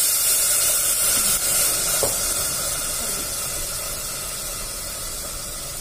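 Water pouring into hot mustard oil and spices in a pan. The oil sizzles and hisses steadily, and the hiss slowly fades as the water and oil settle into bubbling.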